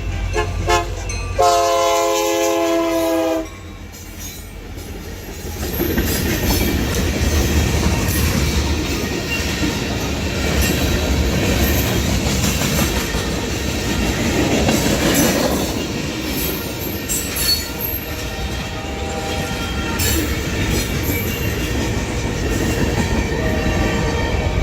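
Union Pacific SD70M's Nathan K3LA air horn giving a couple of short toots, then one long chord blast that cuts off sharply about three seconds in. After a short lull, the freight train rolls past with a loud, steady rumble of locomotive and cars, scattered clicks from the wheels and brief wheel squeals.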